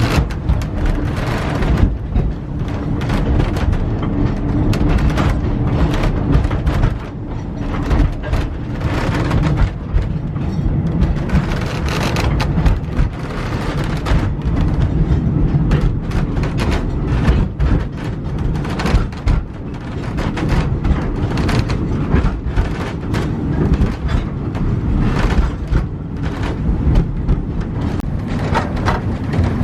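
Narrow-gauge train car running on the track, heard from aboard: a steady rumble with irregular clattering and knocking from the wheels and car body.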